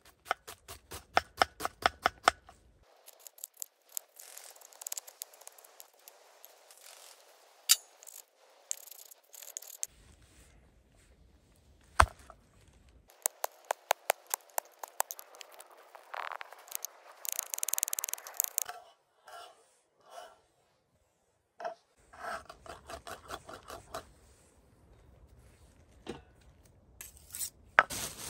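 Kitchen knife chopping onion and garlic on a wooden cutting board: several runs of sharp knocks of the blade on the board, about five a second, with pauses between them and a stretch of scraping about two-thirds of the way through.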